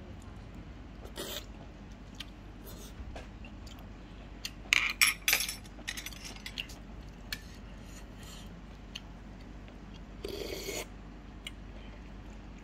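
Metal chopsticks and a spoon clinking and scraping against a soup bowl and tray. A quick cluster of sharp clatters comes about five seconds in, and a short rougher scraping noise just after ten seconds.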